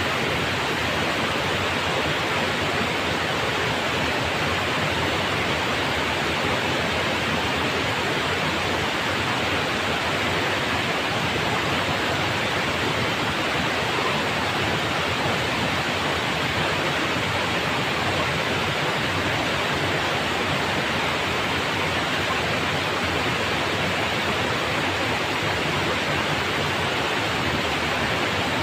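Water pouring over a small weir in a shallow river: a steady, unbroken rush.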